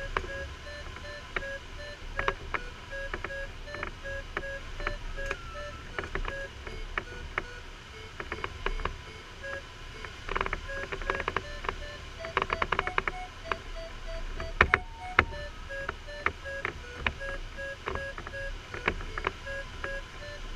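A glider's audio variometer beeps in a steady run of short tones, the beeping of a sailplane climbing in lift. About midway the pitch rises and the beeps come faster, a sign of stronger lift. Under the beeps run steady airflow noise and sharp knocks and rattles from the Rolladen-Schneider LS4 cockpit.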